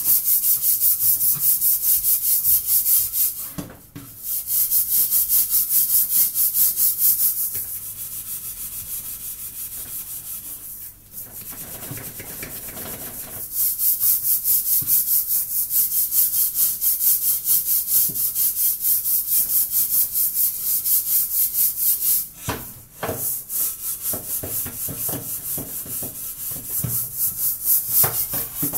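Hand scrubbing of a blackened stainless-steel pot: rapid back-and-forth scouring strokes, about four a second, with a hissing scrape. The scrubbing stops briefly a few times.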